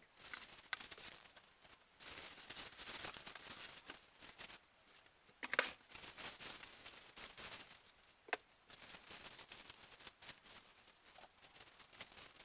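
Plastic wrapping and cardboard packaging being handled and pulled off, an irregular rustling and crinkling with two sharp knocks, one about halfway through and one about three seconds later.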